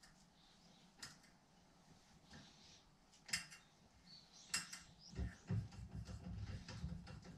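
Faint metal clinks and clicks of hand tools and a small metal bracket being handled at a bench vise, a few separate clicks at first, then from about two-thirds of the way in a run of low knocks and rustling.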